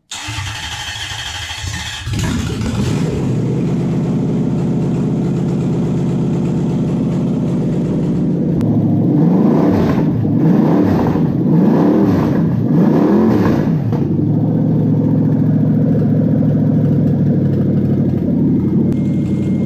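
Toyota 1UZ-FE V8 test engine on an engine stand with no exhaust fitted, starting from cold. It cranks on the starter, catches about two seconds in, and idles. In the middle it is revved up and down about four times, then settles back to a steady idle. It runs this way despite a valve problem in one cylinder.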